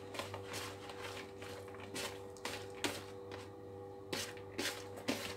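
A hand tossing and squeezing cooked pasta shells and grated carrot in a bowl, making soft, irregular squishing and rustling strokes, over a steady low hum.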